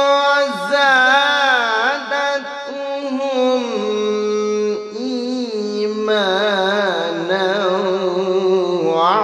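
A man reciting the Quran in the slow, melodic tajweed style, drawing out one phrase in long held notes ornamented with wavering turns. The pitch steps down about four seconds in, and the voice breaks briefly just before the end.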